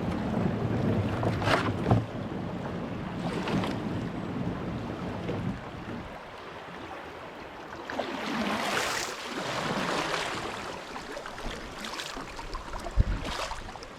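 Kayak on the water: wind buffeting the microphone as a low rumble for the first several seconds, then a swishing of water in the middle, with a few sharp knocks.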